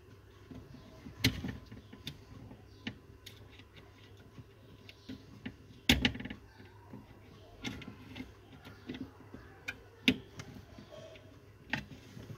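Scattered sharp clicks and knocks of cable connectors and wires being handled at the back panel of a DVR, with the sharpest clicks about six and ten seconds in.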